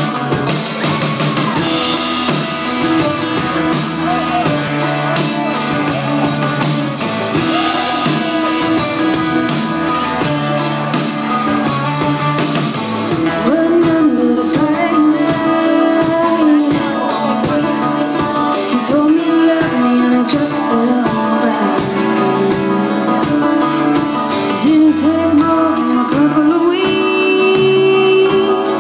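A woman singing live into a microphone over a band with electric guitar, a steady full band sound heard from the audience in a room.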